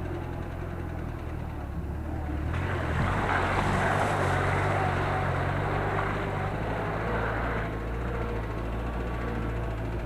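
Vehicle engine running steadily, with a rushing hiss that starts suddenly about two and a half seconds in and stops about five seconds later.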